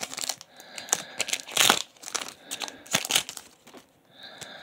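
Foil wrapper of a Pokémon Crimson Invasion booster pack crinkling and tearing as it is opened by hand, in irregular crackly bursts, the loudest about a second and a half in.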